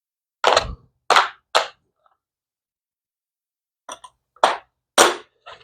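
Sharp clacks of hard pieces knocking or snapping together as the Milwaukee Packout mounting plate and magnetic bin are handled. There are three clacks within about a second, then after a pause a cluster of about five more near the end.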